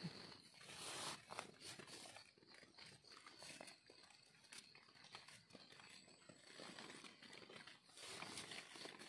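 Faint, scattered scraping and rustling of soil and dry leaf litter as a blade digs a mushroom egg out of the ground.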